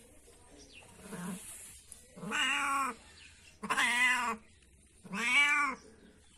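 A small tabby kitten meowing: three loud, drawn-out meows, each rising and falling in pitch, after a faint short call about a second in.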